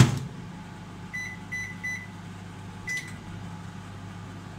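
IFB 30BRC2 convection microwave oven being shut and set: the door closes with a sharp knock, then three quick keypad beeps about a second in and a single beep near 3 s, over a steady low hum.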